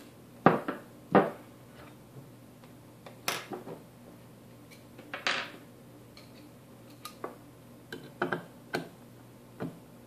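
Small computer parts and a screwdriver being handled on a wooden tabletop and a bare circuit board: a scattered run of sharp clicks and knocks, the two loudest within the first second or so.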